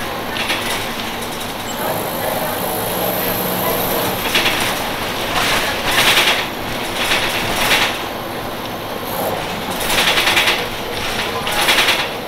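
A 1996 Nova Bus RTS-06 transit bus with a Detroit Diesel Series 50 engine running, a steady din broken by several short, louder bursts of noise.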